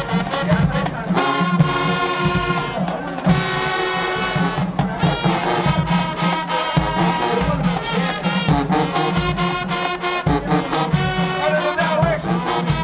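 Marching band playing a loud brass-heavy passage, horns holding full chords over repeated sharp drum hits.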